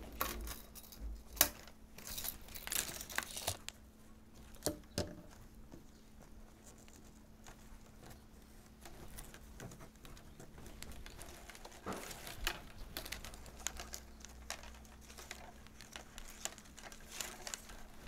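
Plastic baling straps rustling and crinkling as they are woven over and under by hand and slid into place, in bursts with a quieter stretch in the middle. A sharp click about a second and a half in is the loudest sound.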